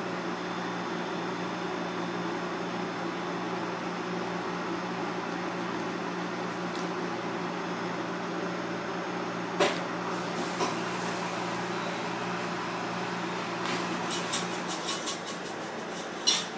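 Steady machine hum from kitchen equipment, with a constant low tone. Light clicks and knocks start about two-thirds of the way in, the loudest a sharp clack near the end as a container is handled.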